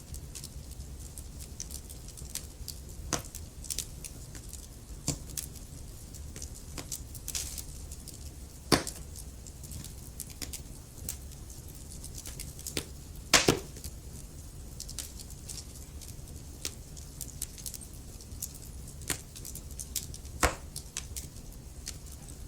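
Burning logs crackling in a fireplace: irregular sharp pops and snaps over a low steady rumble, with a few louder pops about nine, thirteen and twenty seconds in.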